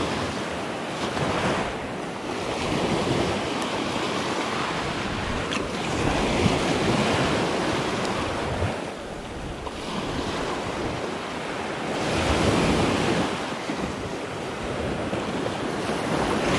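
Gulf surf breaking and washing up the beach at close range, swelling and easing in slow surges every few seconds.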